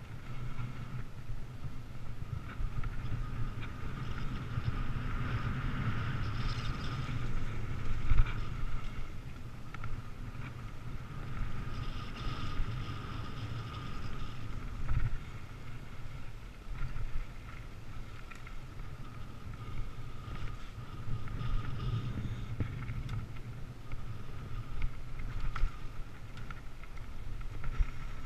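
Mountain bike riding down a dirt trail: wind buffeting the microphone and tyres rumbling over the ground, with a steady high buzz and occasional knocks and rattles as the bike hits bumps.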